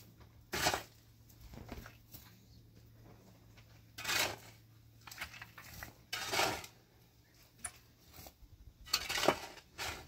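A few short clinks and knocks of objects being handled, scattered over several seconds, over a faint steady low hum.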